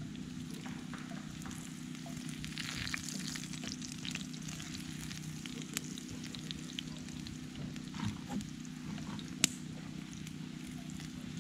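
Food sizzling in a cast-iron skillet over a campfire, with small scrapes and taps as a wooden spatula stirs it. One sharp tap stands out about nine and a half seconds in.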